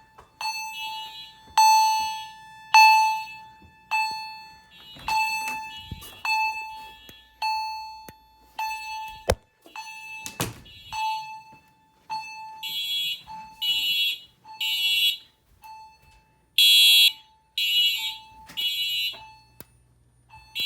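Fire alarm system sounding in alarm after a pull station is pulled. An Edwards chime strikes a ringing tone about once a second. In the second half an electronic fire alarm horn blasts in groups of three, the temporal-3 evacuation pattern, with a few sharp clicks along the way.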